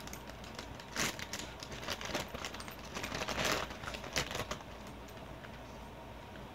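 Crinkly snack bag of popcorn rustling and crackling as a hand reaches in and pulls out popcorn: irregular crackles for the first four or five seconds, busiest about three and a half seconds in.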